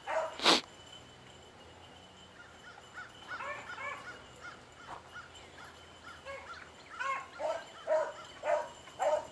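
A pack of beagles barking and bawling in short bursts while running a rabbit, with one short, sharp, loud sound about half a second in.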